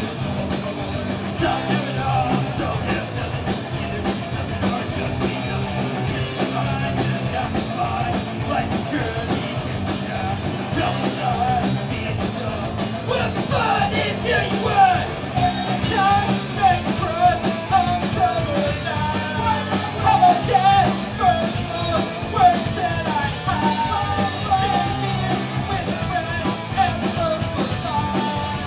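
Punk rock band playing live: electric guitar and drum kit, loud and continuous, with a wavering melodic line coming forward about halfway through.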